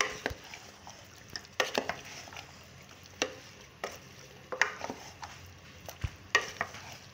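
A spoon stirring diced potatoes and minced meat in a metal pot, with irregular knocks and scrapes of the spoon against the pot about once or twice a second.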